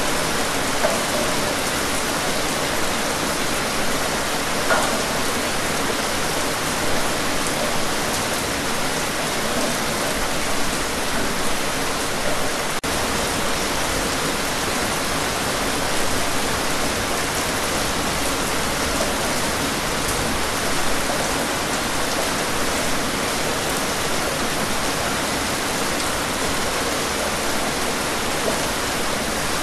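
Steady rain, an even hiss of many drops with no pauses or changes in strength.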